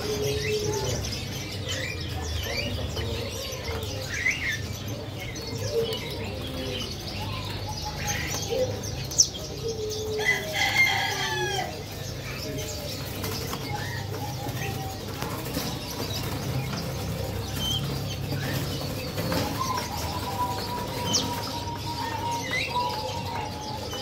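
A crowd of caged zebra doves with wings flapping and fluttering, amid many short bird chirps and calls and a low steady hum underneath. There is a sharp tap about nine seconds in.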